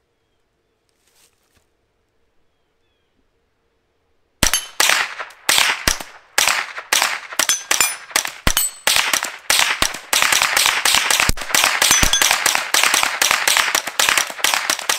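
Suppressed .22 rimfire rifle fitted with an Odin Works Nav 22 suppressor, firing supersonic rounds. After about four seconds of quiet it fires a long rapid semi-automatic string of dozens of sharp shots, getting faster in the second half.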